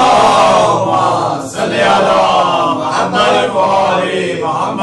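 A roomful of male voices chanting loudly together in unison: the gathering reciting the salawat, blessings on Muhammad and his family, in response to the reciter's call.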